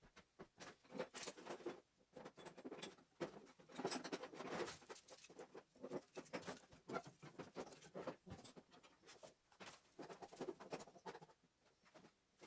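Faint, dense, irregular crackling and rustling as the first fire is lit in a cast-iron wood-burning stove, busiest about four seconds in and again near the end.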